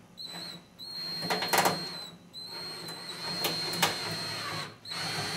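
Cordless drill with a Torx bit driving a tamper-proof screw in short runs: a high motor whine that starts and stops about four times, with a few sharp clicks about a second and a half in and again near four seconds.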